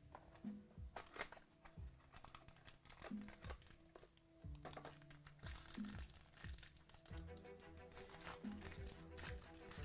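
Cardboard card box being opened and a foil trading-card pack crinkled and torn open by hand, the crinkling densest near the end. Quiet background music with a low note repeating every couple of seconds runs underneath.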